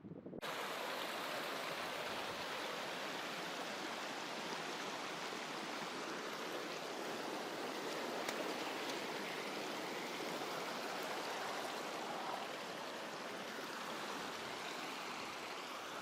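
Mountain creek running steadily, a pretty big flow of water. The sound starts suddenly about half a second in.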